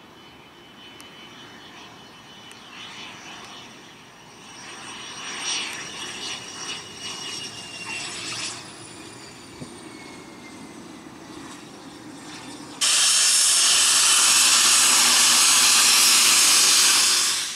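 A small business jet's engines whine as it passes, several tones gliding slowly down in pitch. About thirteen seconds in, the sound switches suddenly to much louder, steady close-range jet-engine noise from a Cessna 510 Citation Mustang, which breaks off abruptly at the end.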